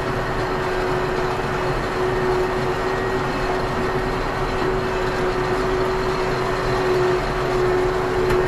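Ursus C-392 tractor's diesel engine running steadily under load while pulling a five-furrow ridge plough through dry soil, with a constant droning tone over the mechanical noise.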